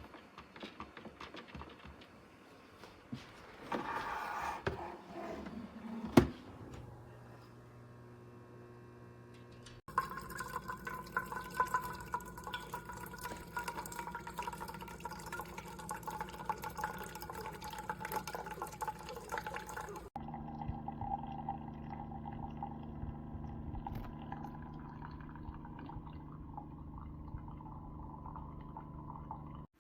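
Keurig K-Supreme Plus single-serve pod coffee maker brewing: its pump hums steadily while water runs through and liquid pours into a cup. The sound shifts abruptly about a third and two thirds of the way in. A few clicks and knocks come in the first seconds.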